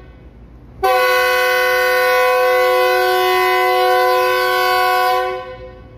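Air horn of a Pakistan Railways GEU40 diesel-electric locomotive sounding one long, steady blast for about four and a half seconds, starting about a second in and fading out near the end, just after a shorter blast. It sounds as the train stands ready for departure.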